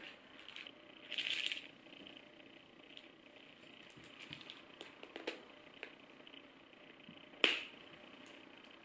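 Quiet handling of a small plastic shaker of dry dog-food treats with a flip-top cap: a short rustle about a second in, scattered light clicks and taps, then one sharp plastic click a little past seven seconds as the cap is worked.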